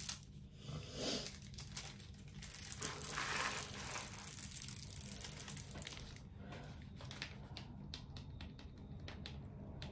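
Hand rubbing and pressing the clear plastic protective film on a diamond painting canvas: a faint crinkling rustle, strongest a few seconds in, then scattered small crackles.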